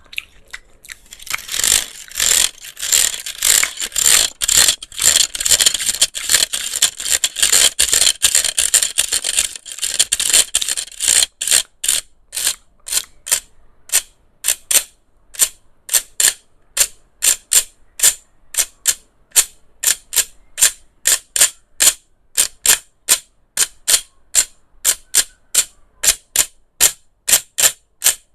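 ASMR trigger sounds made on a handheld electric fan: a dense flurry of quick, hissy strokes, which from about eleven seconds in gives way to separate, evenly spaced strokes at about two or three a second.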